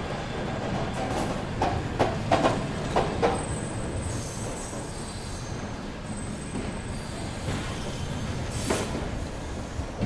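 Arriving train rolling along the rails with a steady low rumble: a quick run of wheel clacks over rail joints about one and a half to three and a half seconds in, then a thin high squeal from the wheels and brakes, and one more clack near the end.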